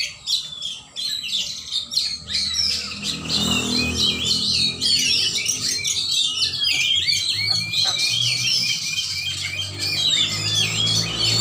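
Caged songbirds singing continuously, many quick chirps and whistled phrases overlapping, with a low background murmur coming in about three seconds in.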